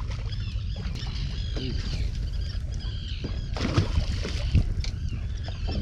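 Steady low rumble of a fishing boat on the water, with many short, high chirping bird calls over it and a couple of sharp knocks a little past halfway.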